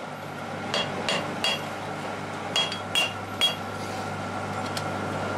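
Blacksmith's hammer striking metal in two quick groups of three ringing blows, over a steady low hum.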